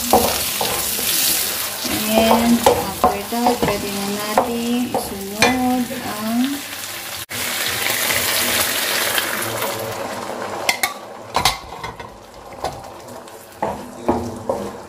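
Mushrooms in tomato sauce sizzling in a nonstick wok while a wooden spatula is dragged through them, with a run of scraping strokes about two a second. After water is poured in, the sizzle dies down and only a few spatula knocks are left.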